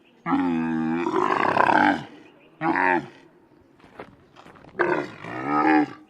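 A camel moaning: three deep, groaning calls with wavering pitch. The first is long, about a second and a half; a short one follows, then another long one near the end.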